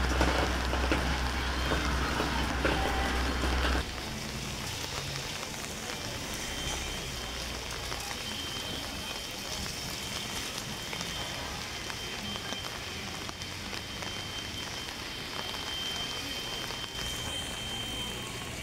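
Storm rain falling in an even hiss. A low rumble runs under it for the first four seconds and cuts off suddenly.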